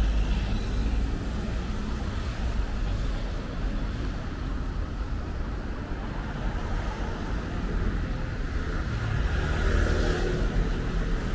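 Steady street traffic rumble, with a vehicle passing about nine seconds in.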